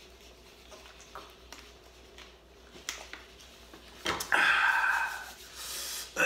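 A man drinking from a plastic water bottle, with small clicks and crinkles of the bottle. About four seconds in the bottle is set down with a knock, followed by a long, breathy exhale.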